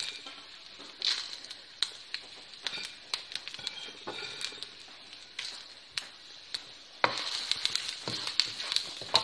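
Whole spices (coriander seeds, cumin, fennel, peppercorns, dried red chillies) sizzling as they roast in a little oil in a non-stick kadai, with scattered sharp clicks of seeds popping. From about seven seconds in, the sizzling and clicking get louder as a wooden spoon stirs the spices.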